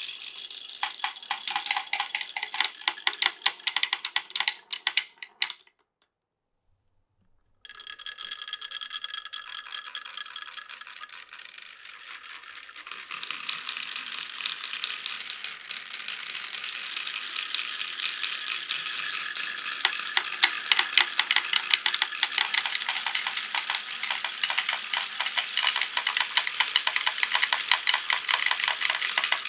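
Many glass marbles rolling and clattering down a wooden marble run, a dense stream of rapid clicks and rattles. About six seconds in it cuts to silence for about two seconds, then resumes and grows louder and denser from about halfway through.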